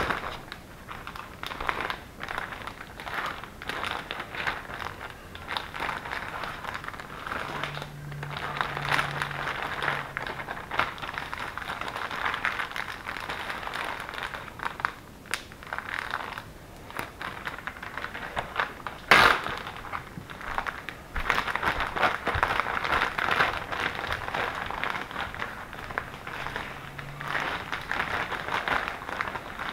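Plastic Ziploc bags crinkling and rustling as filled bags are handled and slid into a bigger freezer bag, with one sharp click about two-thirds of the way through.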